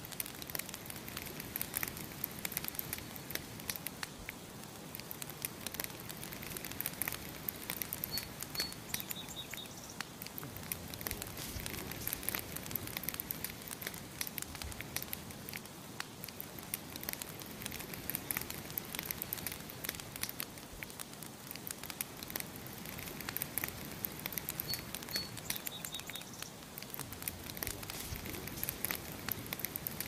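Wood campfire crackling with dense, irregular pops and snaps. A small bird chirps twice, each a couple of high notes followed by a quick run of short notes.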